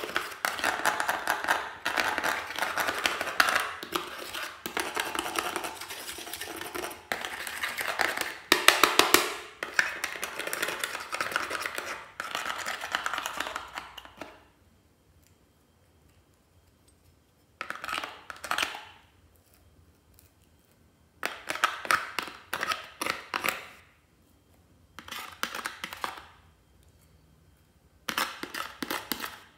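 Metal tool scraping and crumbling pressed glitter eyeshadow out of a plastic toy makeup palette: a continuous dry scratching for about the first half, then four shorter bouts of scraping with quiet pauses between.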